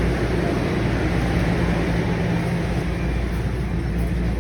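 TTC subway train running: a steady, loud low rumble with an even mechanical hum.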